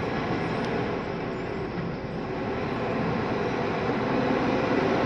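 Steady vehicle engine hum heard from inside a car's cabin, growing slightly louder toward the end.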